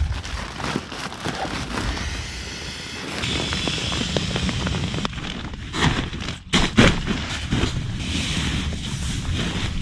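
Nylon tent fabric and camping gear rustling as a sleeping pad and sleeping bag are handled inside a small tent, with scattered light knocks and a few louder bumps a little past halfway.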